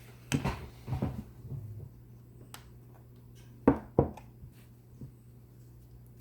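Small hard parts being handled on a bench: a run of clicks and knocks in the first couple of seconds, then two louder sharp knocks close together about four seconds in, over a steady low hum.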